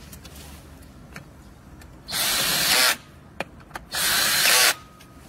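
Electric drill with a screwdriver bit driving screws into a plastic pump-controller housing, in two short runs, each under a second, about two seconds apart.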